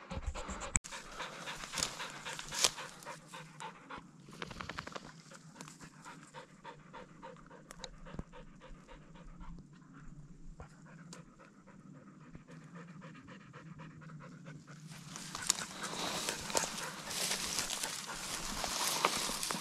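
German shorthaired pointer panting steadily. About three quarters of the way in, louder footsteps and rustling through dry grass join in.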